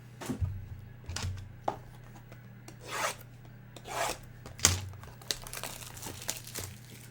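Trading cards and their packaging being handled on a table: scattered taps, two longer sliding rubs about three and four seconds in, a sharp tap soon after, then a quick run of crinkling ticks.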